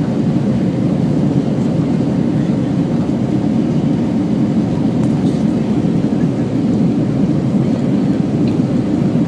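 Steady, loud engine and airflow noise of an Airbus A320 jet airliner, heard from inside the passenger cabin during the takeoff climb.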